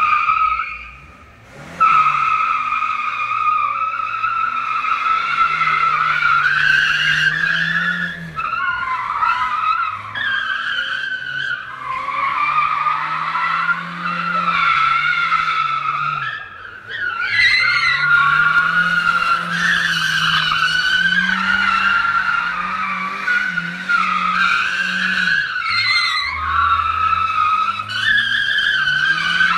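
Car tyres squealing almost without a break as the car drifts in circles, under a high-revving engine whose pitch rises and falls with the throttle. The squeal drops out briefly about a second in and again around seventeen seconds.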